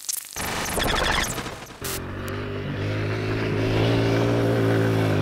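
A short burst of noise at the start, then about two seconds in a Kawasaki KLX 140G dirt bike's 144cc air-cooled single-cylinder four-stroke engine comes in. It runs at a steady note and grows louder over the next couple of seconds as the bike rides up the trail.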